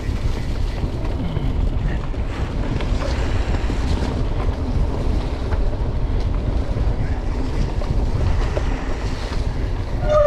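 Wind buffeting an action camera's microphone while a mountain bike rides along a trail, a steady dense rumble with occasional small knocks from the bike going over rough ground.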